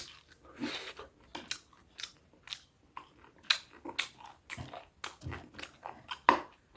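Close-miked chewing and biting of food, with irregular crunchy crackles and mouth sounds, a couple of louder crunches about halfway and near the end.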